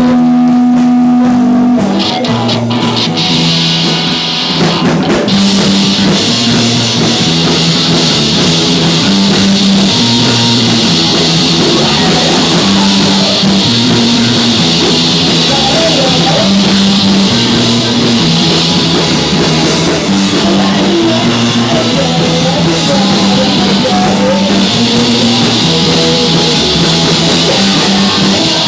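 Live rock band playing: electric guitar, bass and drum kit with cymbals. A held note opens it, and the full band comes in about two seconds in with a steady repeating bass line.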